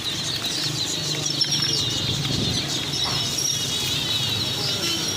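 A crowd of chicks peeping together: many short high chirps overlapping in a dense chorus, over a low steady hum.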